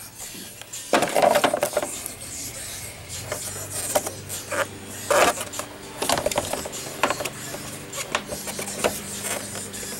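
Tools and engine-bay parts being handled during reassembly: irregular clicks, knocks and scraping that start about a second in, with a low steady hum underneath later on.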